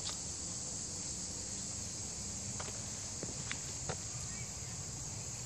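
A steady high-pitched insect chorus, with a few soft footsteps on a path.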